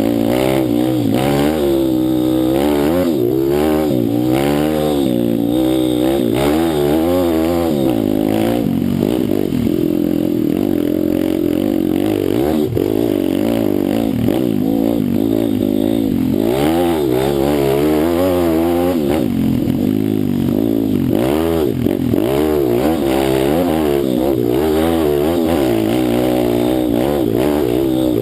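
Pit bike engine being ridden hard, its pitch rising and falling again and again as the throttle is opened and closed, holding steadier for several seconds in the middle.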